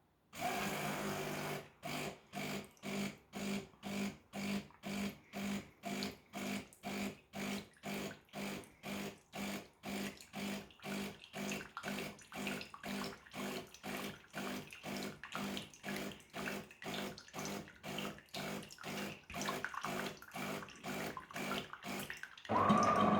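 Automatic espresso machine running its rinse cycle: the pump hums and pulses evenly, about two beats a second, as it pushes hot water through the spout into a cup. Near the end the sound changes to a steadier, louder hum.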